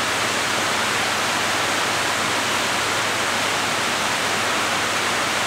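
Electric fans running, a steady rush of blowing air that does not change.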